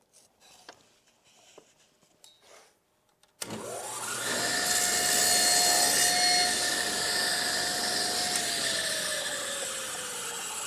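Faint handling sounds, then a table saw switched on about three and a half seconds in. It runs up to a steady whine while crosscutting a wood scrap, then winds down after it is switched off, its pitch falling slowly.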